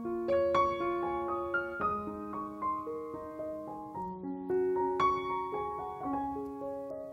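Background piano music: a gentle melody of single notes over sustained chords.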